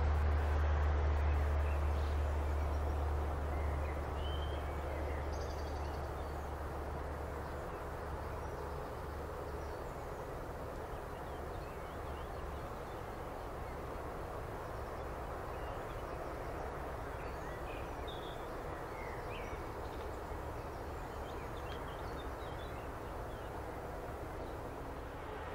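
Freight train rumbling away into the distance, its low rumble fading over the first several seconds, leaving a steady outdoor background with scattered bird chirps.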